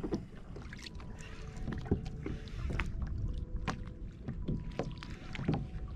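Sea water splashing and lapping against a fishing kayak's hull, with scattered small knocks and splashes over a low wind rumble on the microphone.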